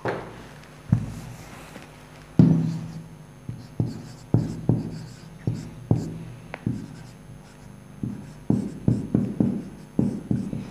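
Marker pen writing on a whiteboard: a run of short, sharp strokes and taps, about two a second.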